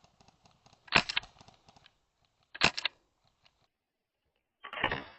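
Airsoft gun firing three short bursts of sharp, clicky shots: about a second in, again nearly two seconds later, and a longer burst near the end.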